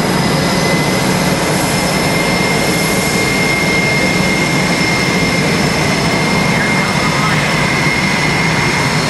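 Military jet engines running steadily, a loud even rush with a constant high turbine whine, with crowd voices mixed in.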